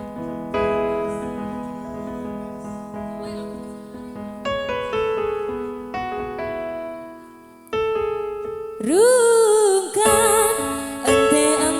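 Electric keyboard playing sustained chords as a slow song intro, then a woman starts singing the opening line near the end, her voice wavering in pitch over the keyboard.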